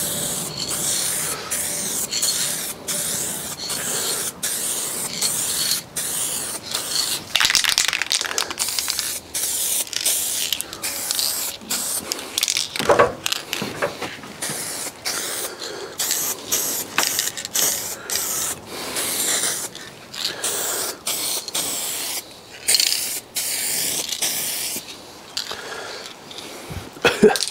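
Car paint being sprayed onto a body panel in repeated hissing passes, each a second or so long with brief breaks between them, as a coat of colour goes on.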